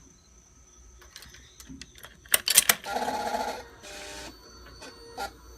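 A few sharp clicks, then a brief, rapid buzzing chatter lasting under a second and a shorter buzz just after it, from the starter relay (solenoid) of a 2003 Kawasaki ZX-6R as the start button is pressed. The engine does not turn over, which the owner suspects is a weak battery, a bad solenoid or a faulty starter.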